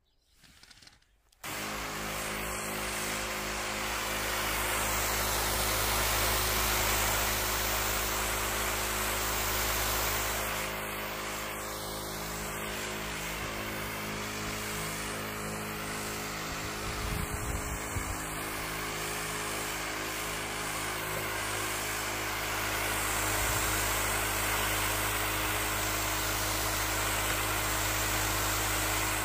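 Electric pump of a PARKSIDE PRDSP 20-Li A1 cordless 20 V backpack pressure sprayer starting suddenly about a second and a half in and running steadily with a hum, under the hiss of water spraying as a fine mist from the lance nozzle.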